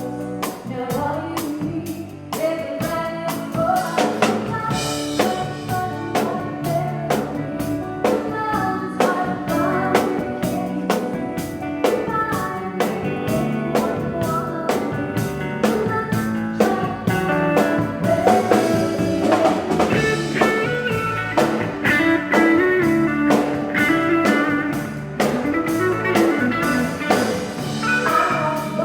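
Country band playing a song with electric guitar and a full drum kit, with singing.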